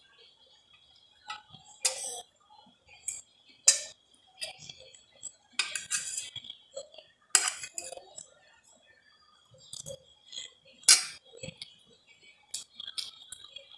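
Metal spoon clinking and scraping against enamel plates of rice and noodles: a handful of sharp clinks a second or more apart, the loudest near the end, with smaller ticks between.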